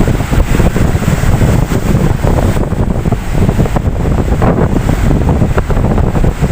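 Ocean waves washing in, with wind buffeting the microphone in a loud, unsteady low rumble.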